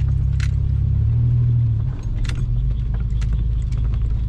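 Truck engine running under a bit of throttle while driving over rough ground, its note dropping about two seconds in. Scattered rattles and jangling clicks sound throughout.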